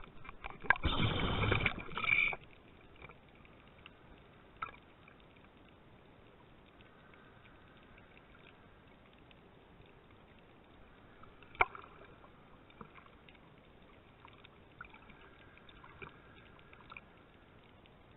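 Sound picked up underwater by the camera: a loud rush of water lasting a second or two near the start, then a faint muffled hiss with scattered small clicks and one sharp click about midway.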